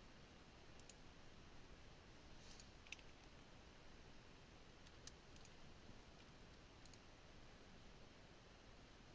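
Faint computer mouse clicks, single and in quick pairs, scattered over near-silent room tone.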